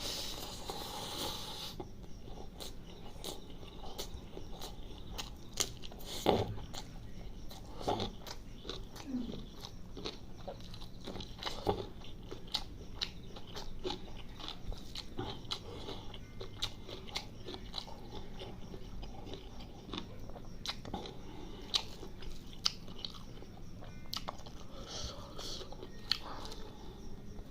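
Close-up chewing of spicy chicken liver curry with rice: a steady run of wet mouth clicks and smacks.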